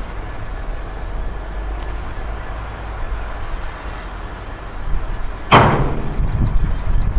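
Low diesel engine rumble, then about five and a half seconds in a sudden loud crash as a Volvo wheel loader tips a bucketful of crushed roadstone into an empty steel HYA hopper wagon, followed by the rattle of stone settling.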